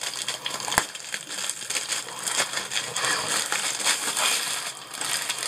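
Plastic wrapping crinkling as it is pulled off a rolled diamond painting canvas, with one sharp tap a little under a second in.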